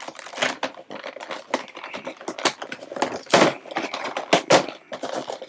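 Cardboard Pokémon card collection box being pried and pulled open by hand: irregular clicks, taps and scrapes of the cardboard flaps, with a few louder snaps past the middle. The box is not opening easily.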